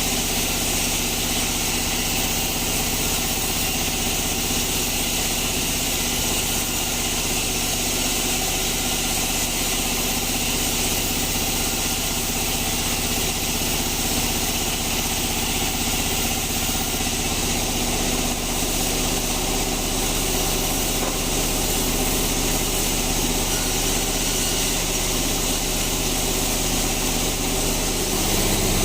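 Sawmill bandsaw machinery running steadily, a continuous engine-like drone with a high hiss over it.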